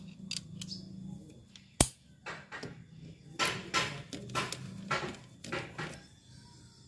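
A sharp metallic click, then about eight short rasping strokes of a socket ratchet wrench tightening a motorcycle's oil drain bolt back in after the old oil has been drained.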